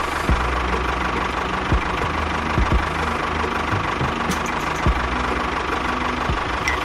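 Tractor engine idling with a steady low knocking beat, broken by a few short thumps.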